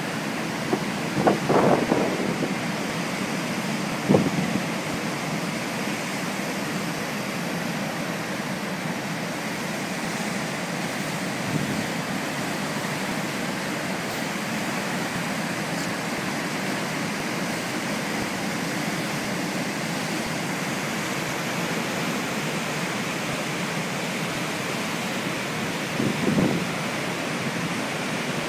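Rough storm surf, a steady roar of breaking waves and foaming water washing over rocks. A few short louder thumps break through it, about a second in, at about four seconds and near the end.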